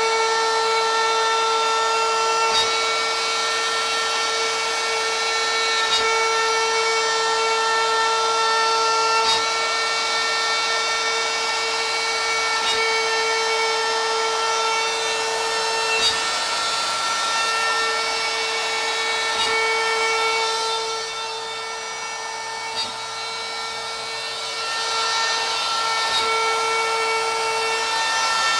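Shapeoko XL CNC's router spindle running with a steady high whine while a 1/4-inch straight flute bit pocket-cuts poplar. The cutting noise eases off for a few seconds past the middle, then comes back.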